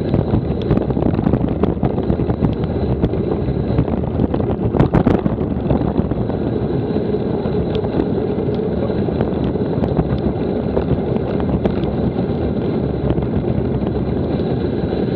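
Wind buffeting an action camera's microphone during a mountain-bike ride: a loud, steady low rumble, with scattered clicks and knocks from the bike on rough ground, a cluster of them about five seconds in.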